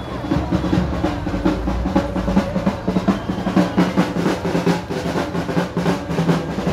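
Quick, steady drumbeats of traditional procession drumming over the noise of a large street crowd.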